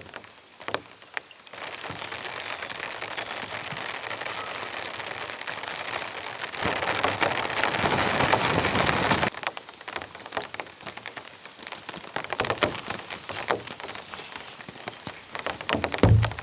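Rain falling steadily, heavier for a few seconds in the middle and cutting off suddenly, then lighter rain with scattered drips. A single low thump near the end.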